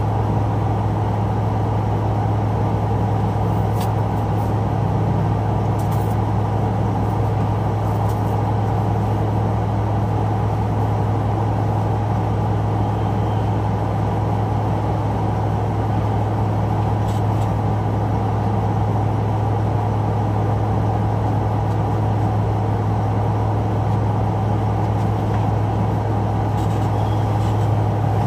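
Steady low drone of an idling truck engine, heard from inside the cab, with a strong, even hum and no change in pitch or level.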